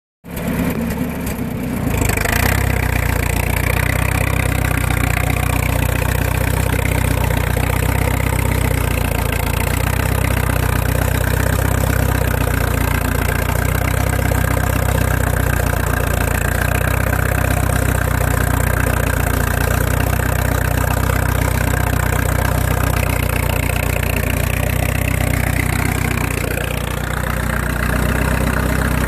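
1952 Case DC tractor engine running steadily, dipping briefly near the end and then picking up again.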